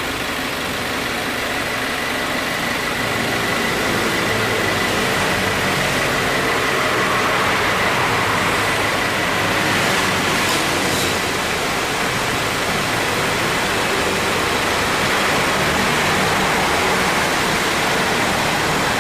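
A 2018 Subaru WRX's flat-four engine idling with the air-conditioning compressor running, a steady whine held over the engine noise and a brief sharper sound about halfway through. The compressor is lightly worn and makes an abnormal noise when it kicks in, and cooling has become weaker.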